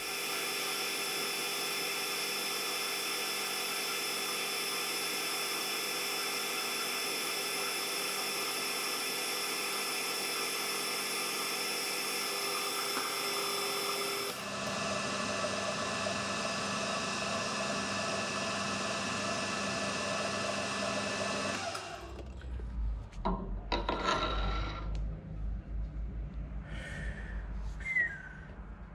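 A metal lathe runs with a steady motor whine while a light turning pass is taken along a 4140 steel Morse taper. The tone changes about 14 seconds in. About 22 seconds in the lathe stops, followed by scattered knocks and handling sounds at the chuck.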